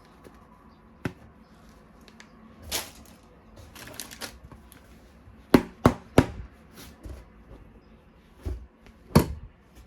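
Hard plastic toy weapons being handled, with a series of irregular sharp clicks and knocks. Three loud clicks come in quick succession about halfway through, and another comes near the end.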